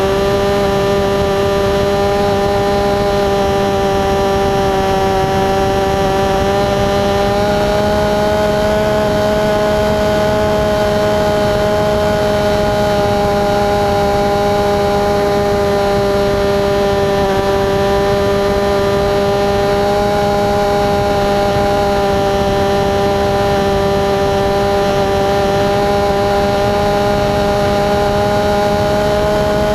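RC plane's motor and propeller heard from onboard, a steady droning buzz at cruising throttle that rises a little in pitch about seven seconds in.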